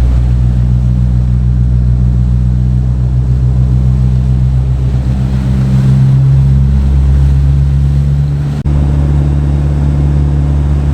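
Charter fishing boat's engine running steadily at cruising speed, a loud low drone, with a momentary drop about eight and a half seconds in.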